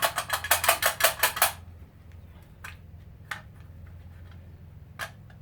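About ten quick metallic knocks in a second and a half as a part of a garbage disposal is worked loose, followed by a few light clicks and one sharper knock near the end.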